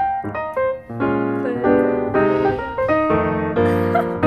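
Background music led by piano, with chords and single notes changing in quick succession.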